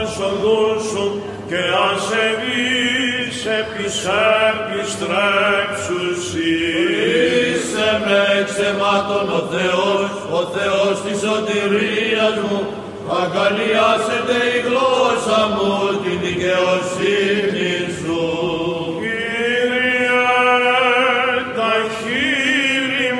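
Byzantine chant sung by cantors: a slow, ornamented melody whose words can't be made out, over a steady low held note, the ison drone.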